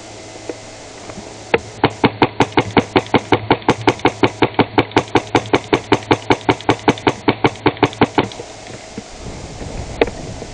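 Airsoft rifle firing a steady string of shots, about five or six a second, for roughly seven seconds, then one more shot near the end.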